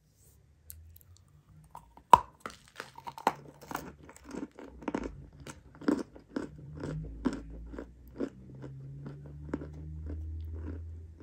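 Close-miked biting and chewing of a lump of pink chalk: one sharp crack about two seconds in as a piece is bitten off, then a run of dry crunches, two or three a second, as it is chewed.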